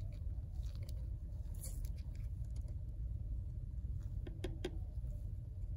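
Low steady hum with a quick run of three soft clicks about four seconds in: gloved fingertips tapping in a passcode on an iPhone X's touchscreen keypad.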